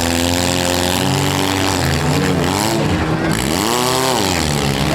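Engines of four- and six-cylinder demolition derby cars running and revving, several at once, with one engine revving up and dropping back about three and a half seconds in.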